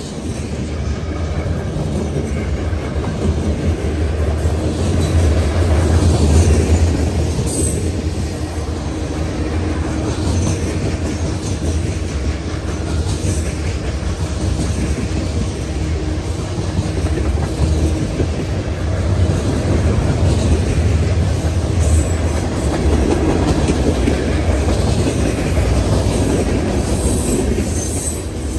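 Freight cars of a passing mixed manifest train rolling by at close range: a loud, steady low rumble of steel wheels on rail, swelling a little about six seconds in, with a few faint brief high squeaks from the wheels.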